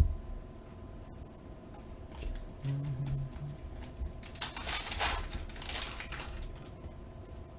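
Trading cards and a pack wrapper being handled, with a thump at the start and a rustling, shuffling stretch about halfway through.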